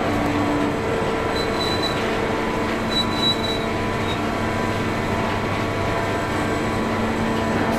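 Steady mechanical hum and drone of an automatic forging press line's machinery, with a couple of brief high squeaks.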